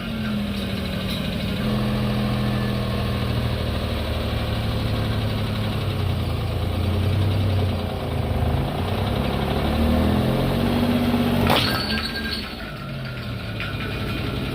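Car engine running at low revs, its pitch rising and falling as the car moves slowly. A single sharp crack sounds about eleven and a half seconds in.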